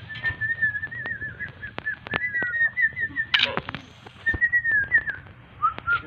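A person whistling a wavering, warbling tune in short phrases, breaking off a little past halfway and resuming lower near the end. Sharp clicks run throughout, with a louder knock about halfway through.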